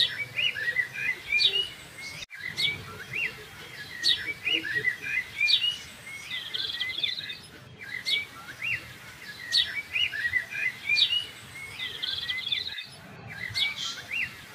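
Small birds chirping and tweeting in many quick, rising chirps. The recording loops about every five seconds, with a brief dropout at each repeat.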